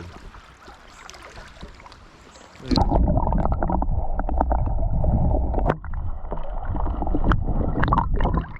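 Loud muffled rumbling and gurgling noise right against the microphone. It starts suddenly about three seconds in, dips briefly midway and stops just before the end.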